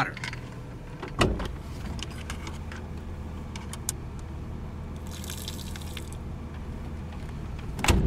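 Water being poured out of a small plastic 12-volt car kettle, a short splash of about a second midway. Under it is the steady low hum of the car's idling engine, and there is a knock about a second in.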